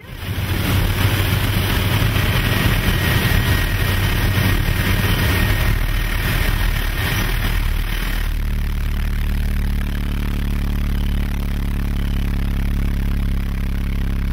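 Loud rushing wind noise for about the first eight seconds, then the steady drone of the King Air's twin turboprop engines heard inside the cockpit as the plane dives steeply after the jump.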